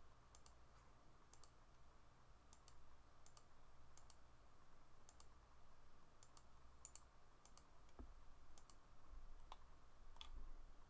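Faint computer mouse clicks, a dozen or more at irregular intervals, many as quick double ticks of button press and release, over a low steady hum: line selections for a multiple fillet in CAD software.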